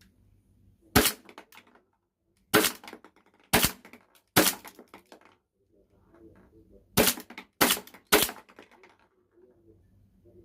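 Toy P320 M18 airsoft pistol firing seven sharp shots: one, then three about a second apart, then after a pause three more in quicker succession, each followed by a brief rattle.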